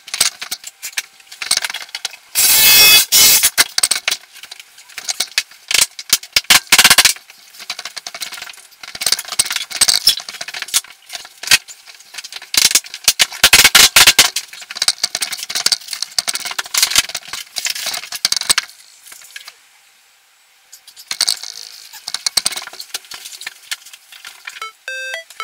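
Hand work on a laminate floor: an irregular run of clicks, rattles and crackles as laminate planks and foil-backed underlay are handled and laid, with a short quiet pause near the end.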